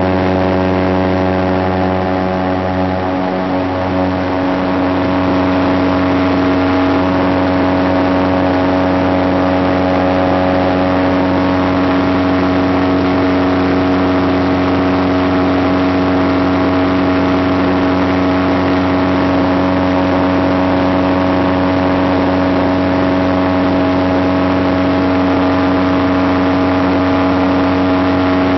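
Kolb Mark III Xtra light aircraft's engine and propeller droning steadily in cruise, heard loud inside the cockpit. The pitch holds level, with a slight dip in loudness about three seconds in.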